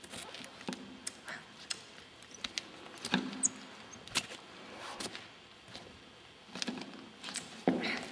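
Scattered light clicks, taps and soft rustles at irregular intervals, with a brief high squeak about three and a half seconds in and a louder knock near the end.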